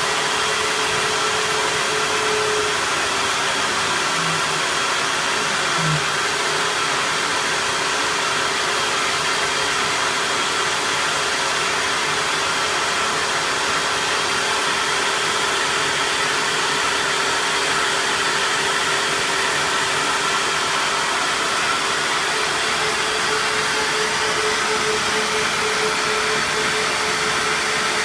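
CNC-converted Optimum BF20L milling machine running a test job: a steady motor whir with a mid-pitched whine in it that wavers briefly near the start and again near the end.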